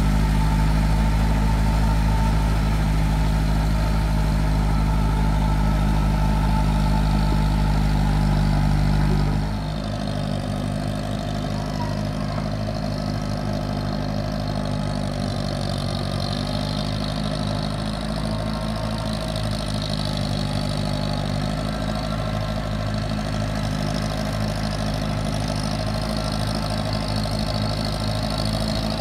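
Massey Ferguson 185 tractor's four-cylinder diesel engine running steadily as the tracked tractor works through flooded paddy mud. About nine seconds in the sound drops and turns thinner and more distant, with less low rumble.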